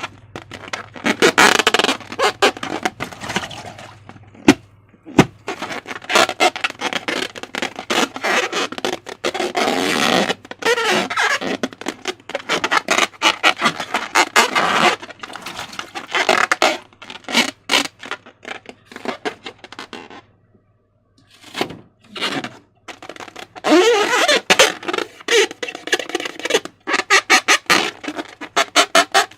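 Slime being squeezed and stretched by hand, squelching and crackling with wet clicks and pops in irregular bursts, with a short pause about two-thirds of the way through.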